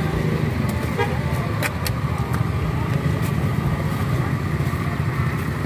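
Steady low hum of an engine or motor, with a few light clicks about one and two seconds in.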